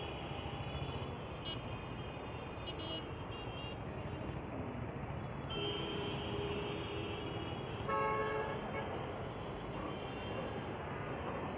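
Steady street traffic noise, with a vehicle horn sounding briefly about eight seconds in, the loudest moment.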